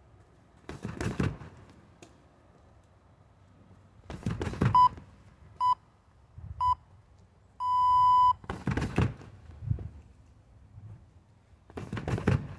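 Kicks thudding against a freestanding punching bag, in clusters of two or three strikes about every four seconds. Midway a workout interval timer sounds a countdown of three short beeps and a long beep.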